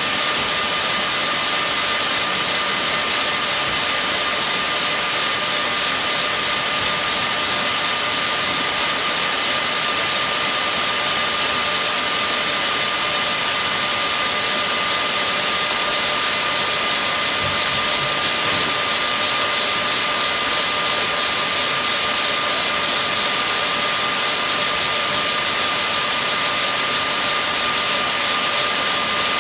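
Circular sock-knitting machines running: a steady, high-pitched whir with a constant whine.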